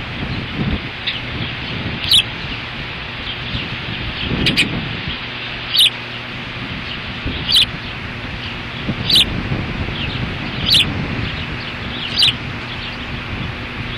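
Ospreys at the nest giving short, sharp high-pitched chirps, one about every second and a half, with fainter chirps between them, over a steady background hiss.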